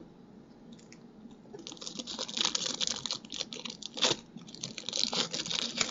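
Trading-card pack wrapper crinkling and cards being handled. A dense run of crackles and clicks starts about a second and a half in, with a sharper snap about four seconds in.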